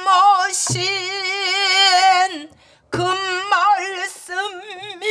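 Pansori singing: a woman's voice holding long notes with a wide, wavering vibrato in two phrases, with a low stroke on a buk barrel drum under each phrase.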